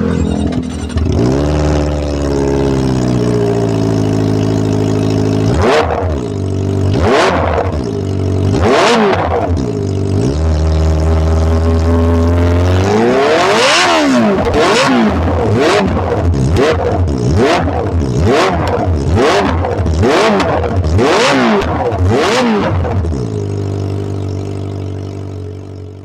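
Kawasaki ZX25R's 250cc inline-four through an SC Project CR-T carbon exhaust, revved while standing. It idles, is blipped sharply a few times, holds a steady rev, then is blipped quickly about a dozen times before dropping back to idle near the end.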